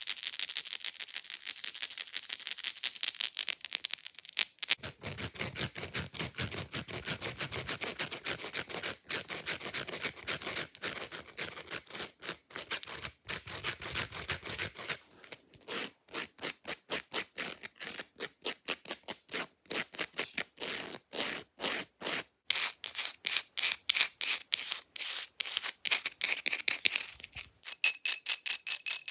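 Fake nails scratching fast at the surfaces of objects: rapid, repeated short scraping strokes. The texture of the scratching changes about four seconds in, again about halfway through, and near the end.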